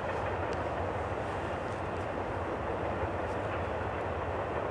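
Norfolk Southern double-stack intermodal train's container cars rolling past, a steady rumble of wheels on rail with a few faint clicks.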